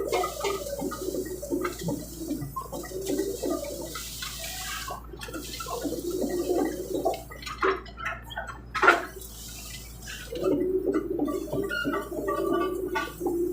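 Excavator working waterlogged ground, its bucket churning mud and water in an uneven sloshing, with a couple of sharp cracks about eight to nine seconds in.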